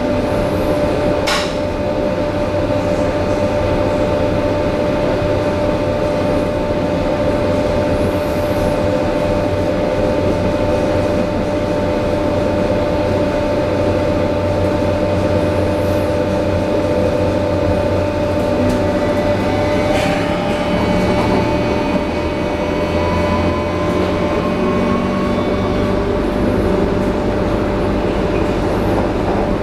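Berlin U-Bahn H-type train running, heard from inside the passenger car: a steady rumble of wheels on track under a constant whine. In the second half another whine rises slowly in pitch, and there are two sharp clicks, one near the start and one about twenty seconds in.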